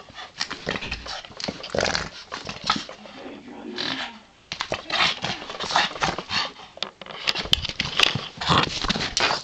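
Boston terrier playing tug-of-war over a rope toy: a run of irregular scuffles, tugs and short dog sounds.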